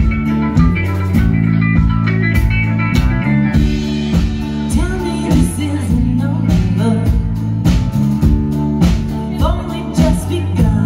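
Live rock band playing: drum kit beating steadily under electric bass and guitars, with a voice singing partway through.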